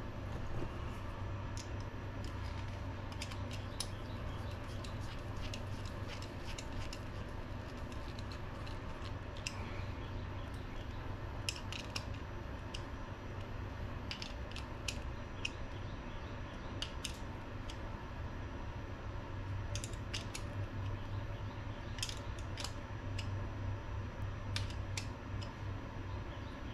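Scattered small metal clicks and taps of hand tools and tiny parts as pistons and clips are fitted onto RC shock shafts held in shock-shaft pliers, over a steady low hum.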